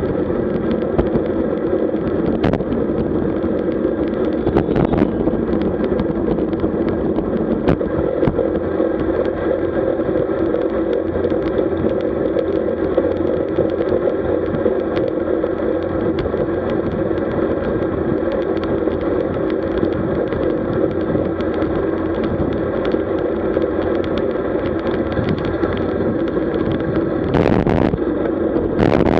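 Steady rush of wind and tyre noise from a road bicycle riding at about 47 km/h in a group of cyclists, heard through the camera's microphone, with a brief louder burst near the end.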